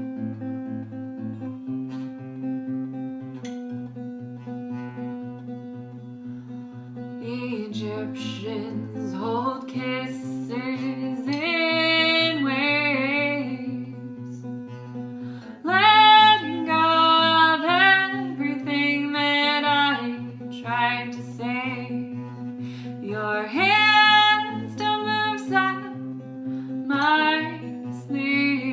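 Acoustic guitar playing a steady picked pattern. A woman's singing voice comes in about seven seconds in and grows louder about halfway through.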